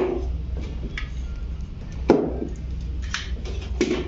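Plastic solenoid valves and a coin acceptor module being handled and set down on a stone countertop: a few short knocks and clatters, the loudest about halfway through, over a steady low hum.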